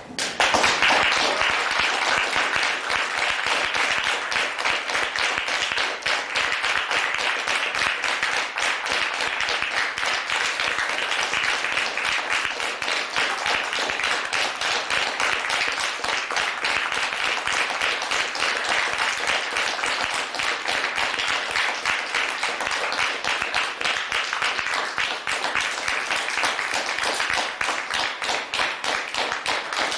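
Audience applauding at the close of a theatre performance, breaking out suddenly at the start and keeping up steadily.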